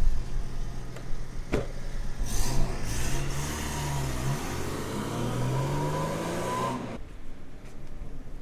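An SUV's engine pulling away and accelerating, its pitch rising and dropping back several times as it shifts up. A sharp knock comes about a second and a half in, and the engine sound cuts off suddenly near the end.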